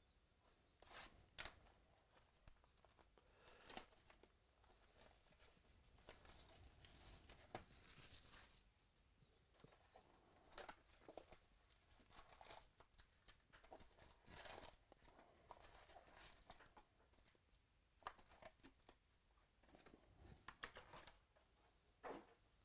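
Faint tearing of plastic shrink wrap slit with a box cutter on a trading-card box, then the cardboard box opened and foil card packs crinkling and clicking as they are pulled out and stacked, in short scattered rustles.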